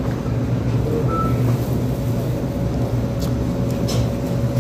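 Steady low mechanical hum with a constant faint tone above it, like running machinery. A few faint short clicks, about three and four seconds in, come from eating by hand.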